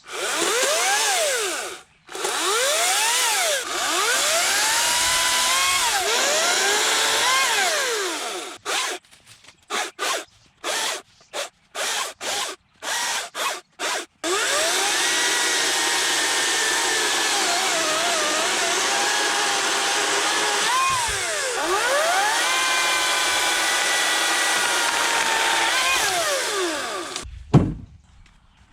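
Ryobi 40V brushless cordless chainsaw running and cutting into wood: an electric motor whine whose pitch repeatedly dips and recovers as the chain bites. Partway through, the trigger is blipped in a string of short bursts, then the saw runs in one long steady cut and stops near the end.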